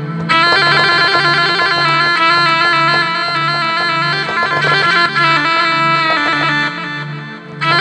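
Electronic keyboard's rababa (rebab) voice playing an improvised taqasim melody with a reedy, bowed tone over a low drone that pulses regularly. The playing softens briefly near the end, then comes back strongly.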